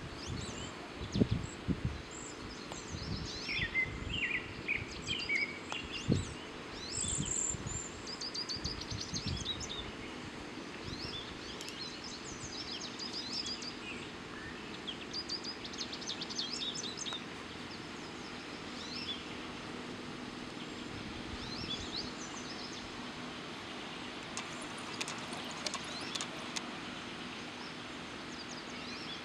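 Small birds chirping and calling on and off over a steady outdoor background noise, with a few low thumps in the first several seconds.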